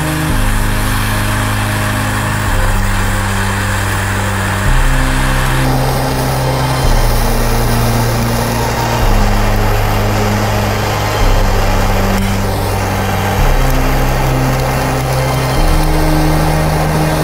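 Background music: an electronic track with held bass notes that change about every two seconds, each change bringing a swell, over a dense steady hiss.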